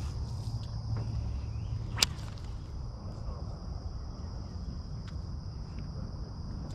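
Insects buzzing steadily at a high pitch over a low, steady rumble, with one sharp click about two seconds in and a few fainter ticks.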